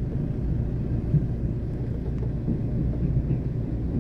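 Low, steady rumble of a passenger train rolling slowly over the rails, heard from inside the carriage, with a few faint knocks from the wheels.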